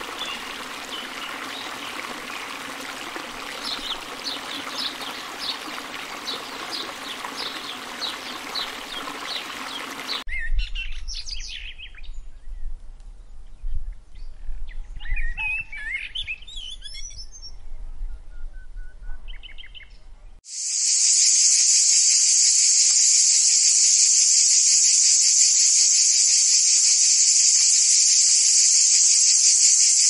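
Running water with birds chirping. About ten seconds in it cuts to a low rumble with scattered chirps, and about twenty seconds in a loud, steady, high-pitched insect buzz takes over.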